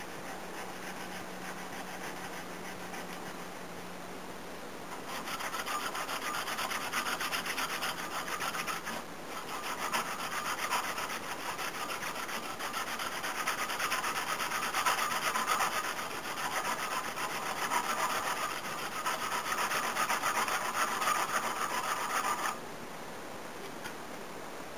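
Hand sanding a knife handle's walnut scale and bolster: abrasive paper rubbed back and forth in quick, continuous strokes, taking down high spots. It starts about five seconds in, pauses briefly near nine seconds, and stops abruptly a couple of seconds before the end.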